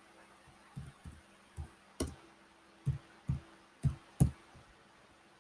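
Typing on a computer keyboard: about eight separate, uneven keystrokes, the last ones the loudest, as a short answer is typed in.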